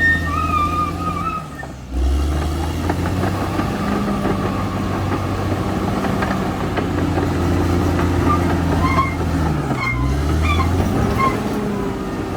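Caterpillar D6R XL bulldozer's diesel engine running steadily under load, with a brief dip in pitch about ten seconds in before it picks back up. High squeaks come through near the start and again toward the end.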